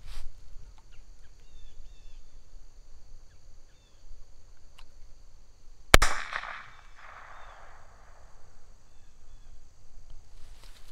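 A single sharp shot from a Smith & Wesson M&P15-22 rifle firing a number-4 Ramset .22 powder-load blank, which launches a golf ball from a cheap launcher threaded onto the muzzle. It comes about six seconds in and echoes for about a second and a half.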